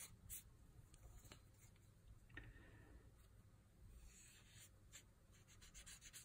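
Faint scratching and rubbing of a solvent-soaked cotton swab worked along a Glock pistol slide's rails, with a few light clicks.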